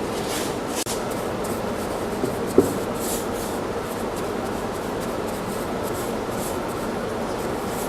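Soft, irregular swishing strokes of stain being rubbed onto the wooden toolbox, over a steady background hiss, with a small tick about two and a half seconds in.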